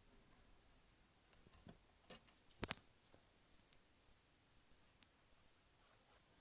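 A few sharp clicks and taps from paper-crafting work at a table, handling paper and small tools, with one louder snap a little before the middle.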